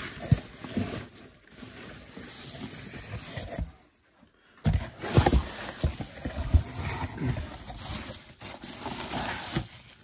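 Rustling, scraping and knocking of cardboard and plastic toy packaging being handled and unpacked. There is a short break about four seconds in.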